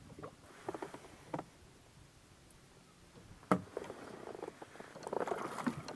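Handling knocks and clicks on a kayak: a caught squid going into a hard plastic ice box and the lid being shut, with a sharp knock about three and a half seconds in, then busier rustling and knocking near the end.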